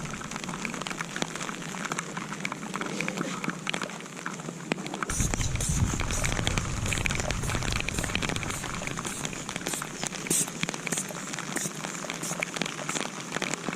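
Rain falling steadily, with many small drop ticks. About five seconds in, a low rumble comes in and stays under it.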